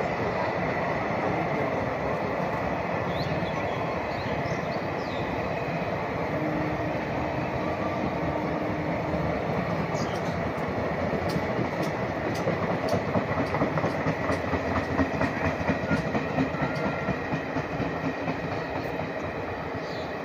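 Indian Railways passenger train coaches rolling past with a steady rumble of wheels on rail. In the second half comes a rhythmic clickety-clack of wheels over rail joints.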